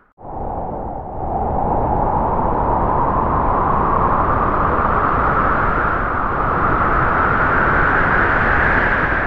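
Howling wind sound effect: a steady rush of noise with a hollow whine that rises slowly in pitch over several seconds, starting just after a brief dropout.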